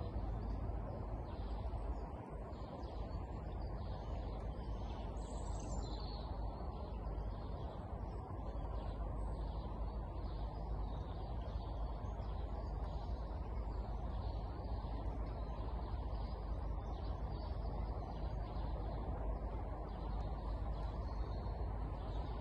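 Birds chirping again and again over a steady low outdoor rumble.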